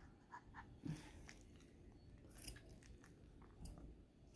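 A few faint, wet mouth clicks from a small Poodle-Bichon mix dog panting with its tongue out; otherwise near silence.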